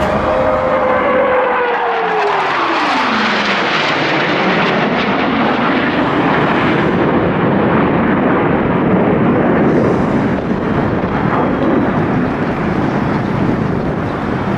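Aircraft making a low pass: its engine tone slides down in pitch over about three seconds as it goes by, then a loud, steady rush of engine noise carries on as it flies away.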